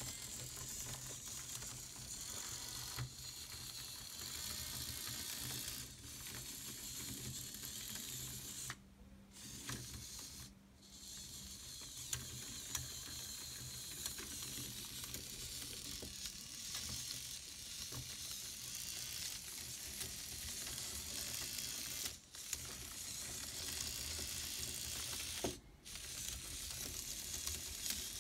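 Small electric gearmotors and plastic tracks of a miniature RC tracked chassis driving: a steady whirring, ratcheting gear noise that cuts out briefly about four times as the drive stops and starts.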